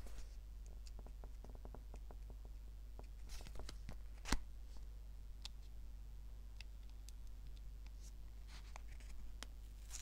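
Faint rustling and small clicks of paper being handled and peeled apart by fingers, with one sharper click about four seconds in.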